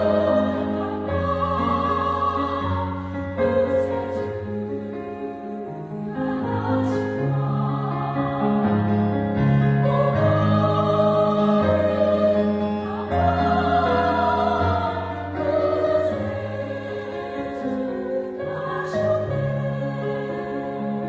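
Church vocal ensemble singing a Christmas song in parts, long held notes moving together in harmony.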